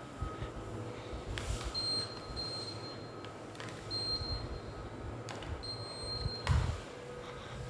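Air conditioner's electronic beeps, a few short high ones spaced over several seconds, over a steady low hum. A few clicks and a low thump come near the end.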